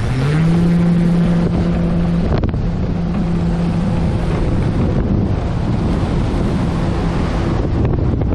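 Hacker A-100 electric motor and Vess 32-A propeller of a large RC airplane on its takeoff roll. The low propeller drone rises in pitch about half a second in as the motor speeds up, then holds steady. Wind rush on the microphone builds over it as the plane gathers speed.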